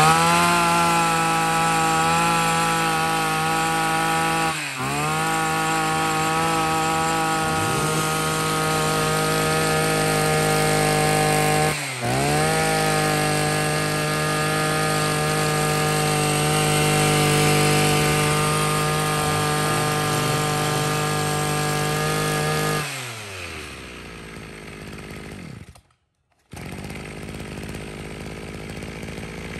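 Maruyama 26cc two-stroke brush cutter engine catching and revving up at once, then running at a steady high speed. Twice, at about 5 and 12 seconds in, the revs dip briefly and climb back. About 23 seconds in, the revs fall away and only a quieter sound remains.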